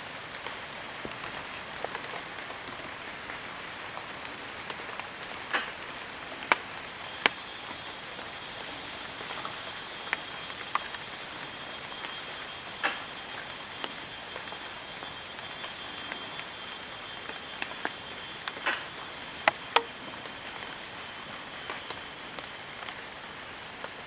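Forest ambience: a steady hiss with scattered sharp, irregular ticks like drops falling on leaves, and a thin, high, steady whine through the middle.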